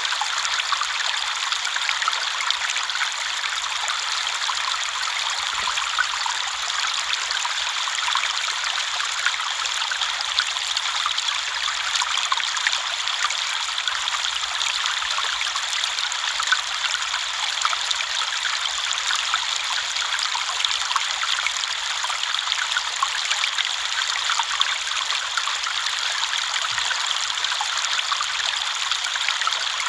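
A river flowing steadily: a constant rush of babbling, trickling water, light and bright, with little low rumble.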